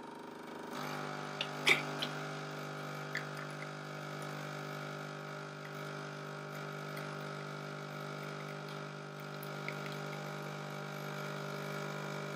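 Automatic espresso machine's pump running with a steady hum while brewing a shot. A sharp click comes about two seconds in, and the hum cuts off abruptly at the end as the shot finishes.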